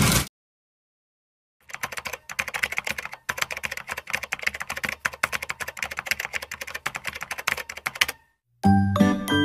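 Typing sound effect: a fast, dense run of keyboard clicks that stops near the end. Light music with plucked, chiming notes then begins.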